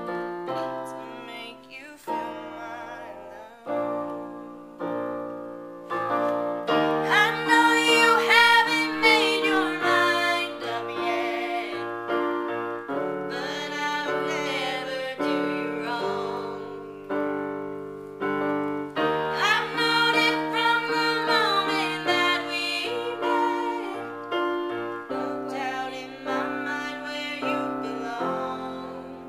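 A woman singing with piano accompaniment. The piano plays chords alone at first, and the voice comes in about seven seconds in, with vibrato on its held notes.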